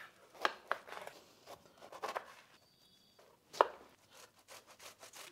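Kitchen knife cutting a pineapple on a wooden cutting board. It gives a series of sharp knocks as the blade strikes the board, the loudest about three and a half seconds in, then quicker, softer slicing strokes near the end as the skin is cut away.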